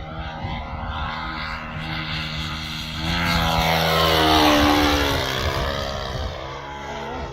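Saito 125 four-stroke glow engine of an RC airplane running in flight. It grows louder to a peak about four seconds in, then its pitch falls and it fades a little.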